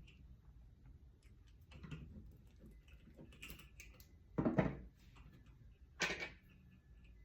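Small metal chain and its links clicking lightly as they are handled and hooked onto small screw hooks, with two louder brief handling noises about four and a half and six seconds in.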